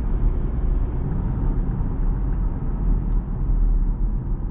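Steady low rumble of road and engine noise inside a Chevrolet Equinox's cabin while it drives along on adaptive cruise control.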